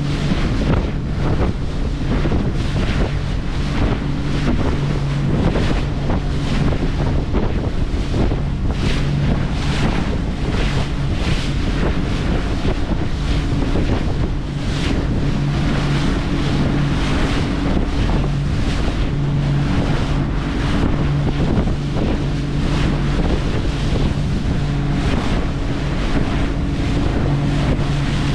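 A boat's engine running with a steady low hum, under heavy wind buffeting the microphone and the wash of waves.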